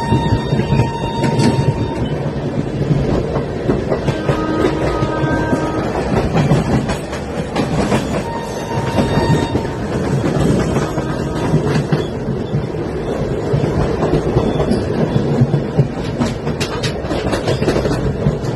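Indian Railways train running on the track: a steady loud rumble with clickety-clack from the wheels over rail joints and short high-pitched wheel squeals now and then.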